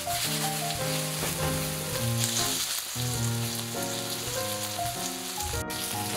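Diced pork and onion searing in hot vegetable oil in a stainless steel frying pan on high heat, a steady sizzle. Background music with a melody of short notes plays over it.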